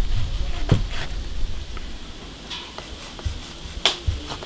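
A few sharp, scattered knocks and clacks of kitchen prep work, utensils striking a board or dish, over a low rumble.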